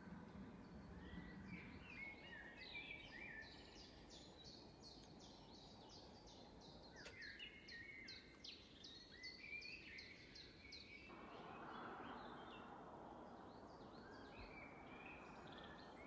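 Faint birdsong from small birds: many short, high chirps over a soft outdoor hiss.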